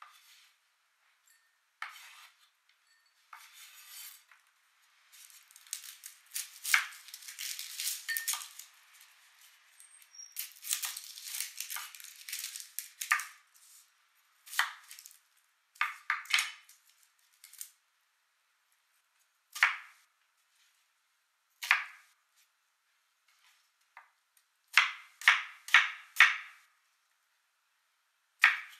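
Kitchen knife on a bamboo cutting board: a long stretch of rustling and scraping in the middle as food is worked on the board, then single knife cuts through an onion, each one knocking on the wood, with a quick run of four cuts near the end.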